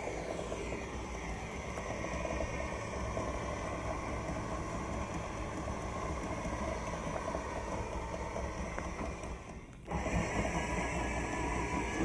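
Sailing yacht's engine running steadily at low revs while the boat lies at anchor. The sound dips briefly about ten seconds in, then carries on as before.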